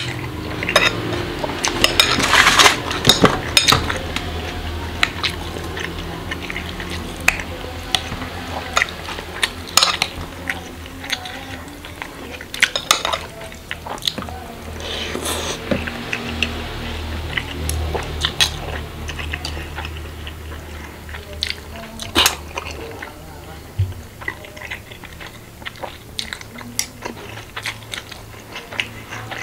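Metal spoon and fork clinking and scraping against a glass bowl in sharp, irregular clicks, with chewing.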